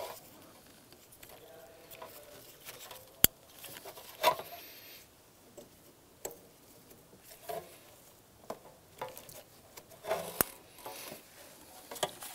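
Plastic electrical connectors and wiring harness on a fuel pump module being handled and pushed together: faint rustling and light plastic clatter, with a sharp click about three seconds in and another about ten seconds in.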